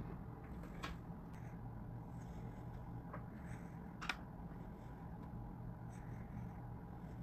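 Quiet room tone with a steady low hum and a few faint short clicks, the clearest about four seconds in.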